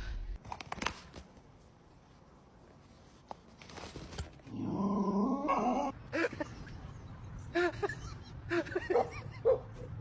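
A dog vocalising: one longer, sliding call about halfway through, then a run of short, higher calls near the end.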